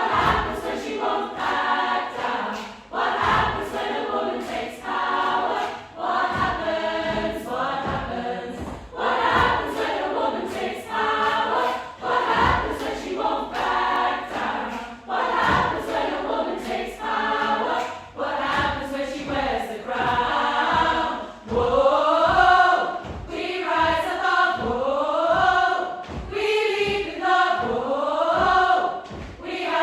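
Upper-voices chamber choir singing, with repeated upward swoops in the voices over the last third.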